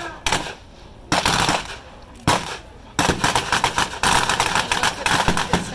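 Machine gun firing blanks in rapid bursts: a short burst about a second in, a single shot just after two seconds, then near-continuous firing over the last three seconds.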